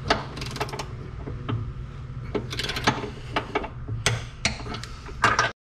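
Socket ratchet clicking in short runs while nuts on the outboard's mounting bolts are tightened, over a steady low hum.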